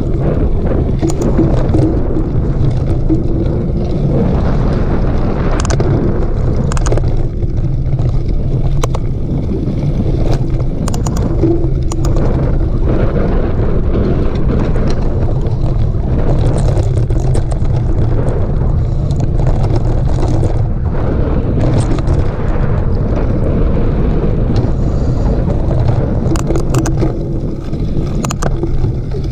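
Mountain bike ridden over a dirt trail: wind rushes steadily over the microphone, with scattered sharp clicks and rattles from the bike over bumps.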